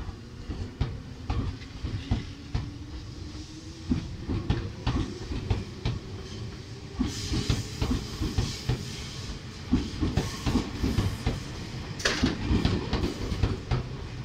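Tobu 200 series electric train pulling away from the platform: a motor whine rises steadily in pitch as it accelerates, over a clatter of wheels on rail joints that comes faster and faster. From about halfway a louder rushing hiss of the passing carriages joins in.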